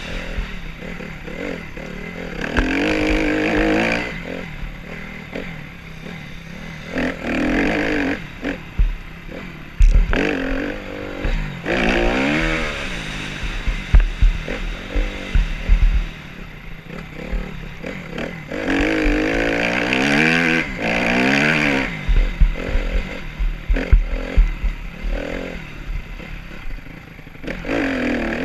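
Off-road motorcycle engine revving hard at speed, its pitch climbing through each gear and dropping at every shift, several times over. Wind buffets the helmet microphone, with low thumps underneath.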